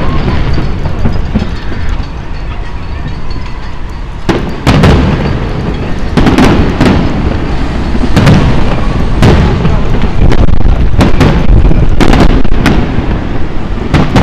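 Aerial fireworks shells bursting in a series of loud bangs over a continuous low rumble. After a quieter first few seconds the bangs come about once a second, closer together near the end.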